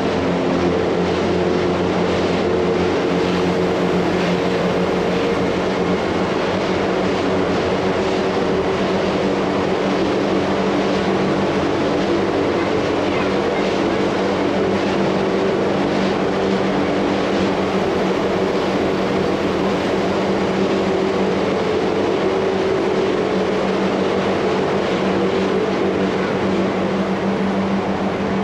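Montreux–Rochers-de-Naye electric rack railway train running steadily, a hum of held steady tones over continuous running noise.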